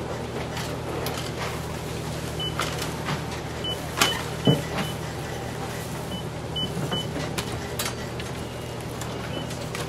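Steady low machine hum with scattered clicks and knocks, and short high beeps now and then; the loudest are two sharp knocks about four seconds in.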